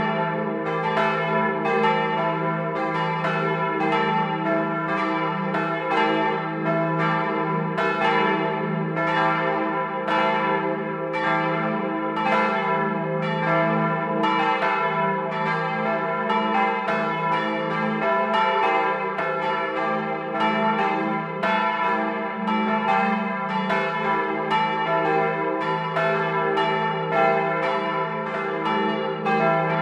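Church bells cast in 1951 by the Otto foundry of Hemelingen, swung by an electric ringing machine and heard up close inside the belfry. The bells ring together, their strokes overlapping at about two a second with long ringing decay.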